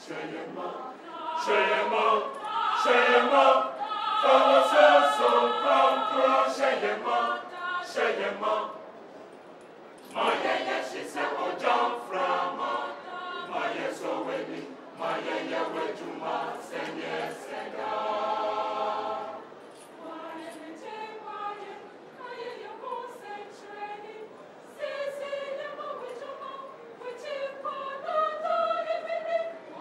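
A mixed choir of men's and women's voices singing together in phrases, with short breaks about nine and twenty seconds in.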